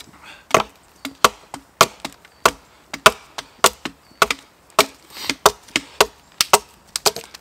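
Axe chopping into a log: a steady run of sharp, hard strikes, each blow about half a second to two-thirds of a second after the last, some followed by a lighter knock.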